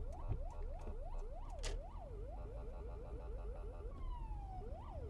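Police car siren sounding close by, its tone rising and falling about twice a second. In the middle it switches briefly to a fast yelp of about eight short rises a second, then gives one falling tone near the end before the slower sweep resumes. A car engine rumbles low underneath.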